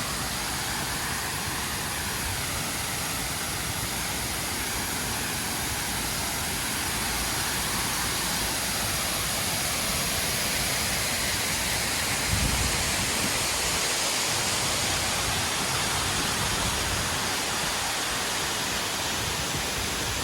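Waterfall pouring steadily, an even rush of falling water, with a brief low rumble on the microphone about twelve seconds in.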